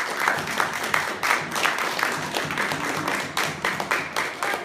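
Applause: a group of people clapping, with dense irregular claps and no steady beat.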